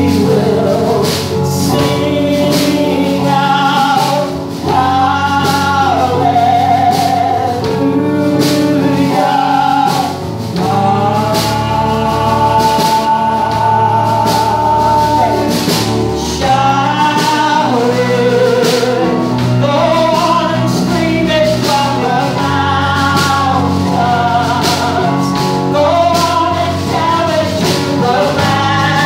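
Live gospel worship music: several voices singing together over piano and guitar, with a steady beat.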